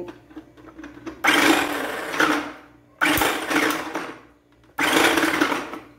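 Mundial electric mini food processor run in three short pulses, its motor starting abruptly each time and winding down as it slices sweet potato through the slicing disc.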